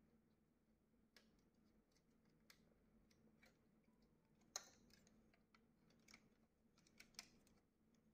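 Faint scattered clicks and taps of hands handling the plastic parts and wiring of an opened HP LaserJet Pro M227fdw printer, with one sharper click about halfway through, over a faint steady hum.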